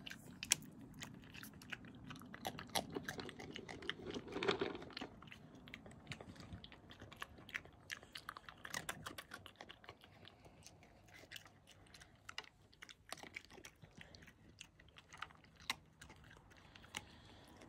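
European badger chewing and crunching food at close range: a run of irregular, sharp crunches and bites.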